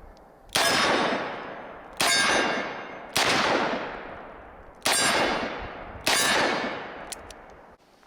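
Smith & Wesson Model 19 revolver fired five times at an uneven pace, about one shot a second or so, each report dying away over a second or more.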